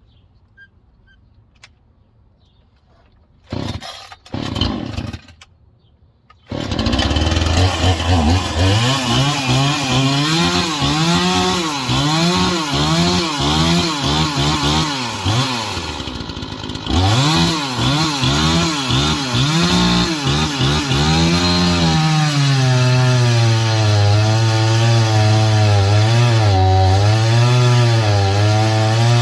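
Small two-stroke chainsaw starting after two short bursts about four and five seconds in, then running. It is revved up and down repeatedly, then held at high revs with a wavering pitch near the end.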